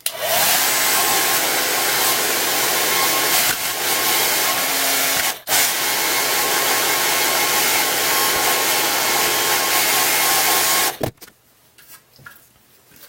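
Handheld hair dryer blowing air, a steady rush with a thin motor whine. It cuts out for a moment about five seconds in and is switched off about eleven seconds in.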